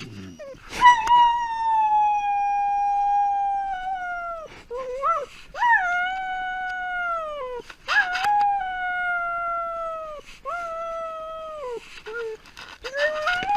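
Domestic dog howling after being left alone: a run of long, high howls, each held and then falling off in pitch at the end, with short breaks between them.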